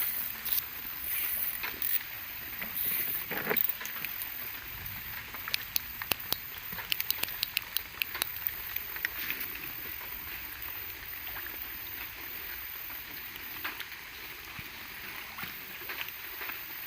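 Steady background hiss, with a quick run of sharp clicks between about five and eight seconds in.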